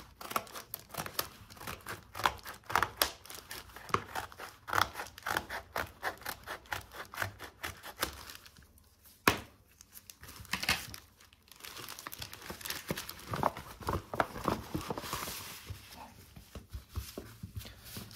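Scissors cutting along the edge of a plastic poly mailer in a quick run of snips, the plastic film crinkling. A single sharp click comes about nine seconds in, followed by a longer stretch of plastic rustling and crinkling as the bag is opened.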